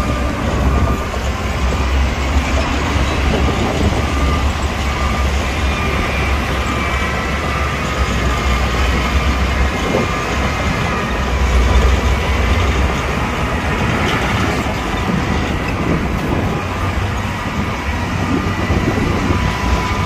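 Bulldozer working: its diesel engine rumbling steadily under load while the steel crawler tracks clank and squeal as it pushes dirt.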